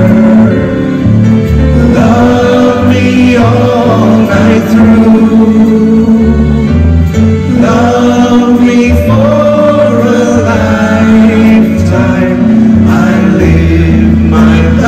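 Live band music: male singers sing a song into microphones over electric bass and band accompaniment, with strong held bass notes.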